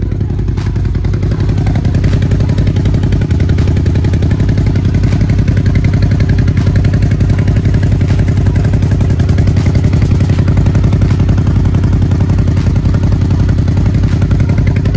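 CFMOTO side-by-side UTV engine idling steadily through its custom exhaust, heard close up under the machine by the exhaust pipe.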